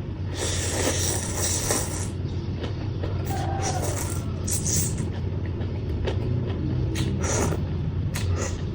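Close-up chewing and crunching of papaya salad with raw vegetables, in short noisy bites over a steady low hum.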